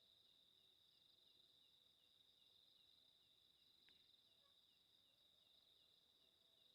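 Faint night insects: a steady high-pitched trill, with a softer chirp repeating about three times a second.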